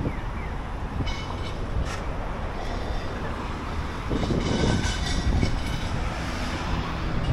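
A train running past, a steady rumble of wheels on rails that swells about halfway through.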